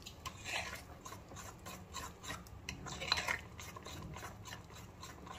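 Spoon stirring thick cake batter in a glass bowl: irregular wet scraping strokes with a few light clicks, as Eno fruit salt is mixed into the batter.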